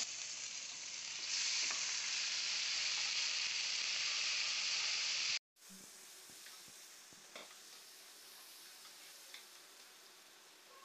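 Freshly drained green peas sizzling in hot mustard oil in a frying pan as they are stirred with a wooden spatula. The sizzle is loud for about five seconds, then after a sudden break goes on much fainter, with a few scrapes of the spatula.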